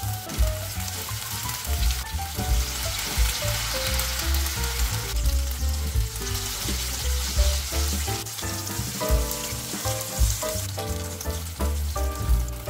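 Battered eggplant slices deep-frying in hot oil: a steady, busy sizzle and crackle. Background music with a beat plays under it.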